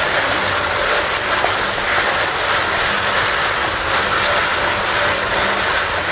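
Car tyre dragged along the ground behind a Belgian draft horse, a steady, unbroken scraping.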